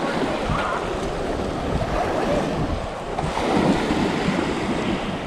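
Small waves washing in and over a shallow sandy shore, with wind on the microphone; one wash swells louder about three and a half seconds in.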